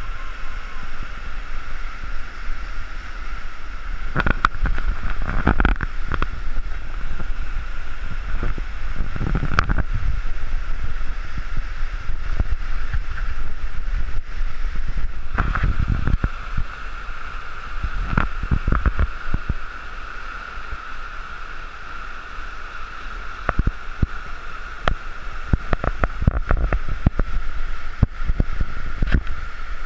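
Whitewater rapids of a river in spate rushing over rocks, a loud steady roar. Several times it is overlaid by short bouts of low buffeting on the microphone.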